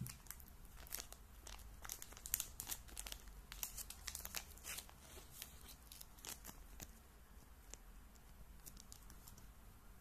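Small clear plastic zip bag crinkling and crackling as it is handled, a quick run of sharp crackles that is densest in the first half and thins to a few light ticks near the end.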